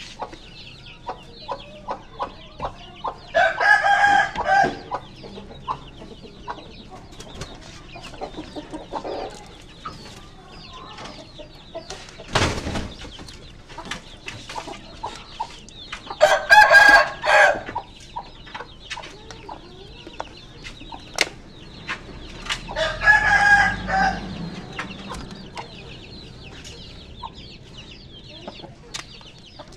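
Rooster crowing three times, each crow about a second and a half long, with soft clucking and small handling ticks between the crows.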